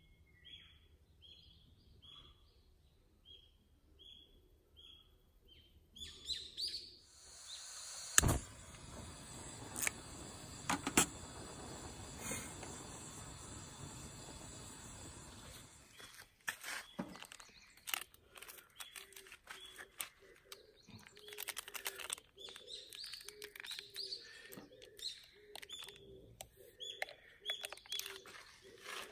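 Small birds chirping, a short call repeated quickly. About six seconds in, a camp stove burner starts a steady hiss with a few sharp metallic knocks. The hiss runs for about ten seconds, and then bird chirps and small clicks return.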